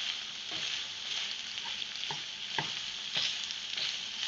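Seafood, bell peppers and mushrooms sizzling in a hot pot as they are stirred, a steady hiss with a utensil clicking against the pot several times.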